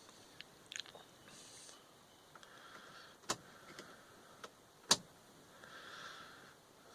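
Sharp clicks twice, about a second and a half apart, with a few smaller ticks, in the quiet cabin of a Toyota Corolla 2.0D diesel that is not yet running: the ignition key and glow-plug relay being cycled to preheat the glow plugs before a cold start.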